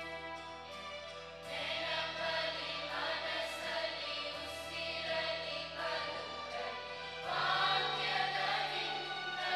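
A school choir of mostly girls singing a Kannada song together through microphones, over held low accompanying notes that shift every few seconds. The singing gets louder about seven and a half seconds in.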